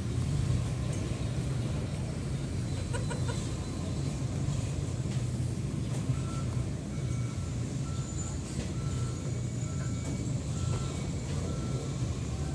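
A steady low rumble of a running vehicle engine, with a reversing beeper sounding in short, evenly spaced beeps, about two a second, through the second half. A brief cluster of chirps comes about three seconds in.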